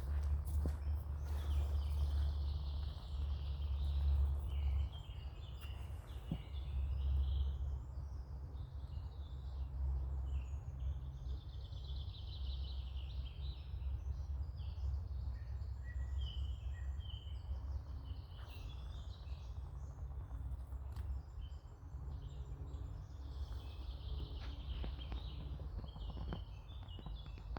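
Woodland songbirds singing, several short warbling phrases one after another, over a steady low rumble.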